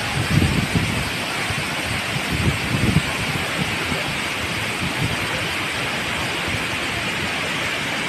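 Steady rushing of Tinuy-an Falls, a wide tiered waterfall, as a constant even wash of water noise. A few low bumps break through in the first three seconds.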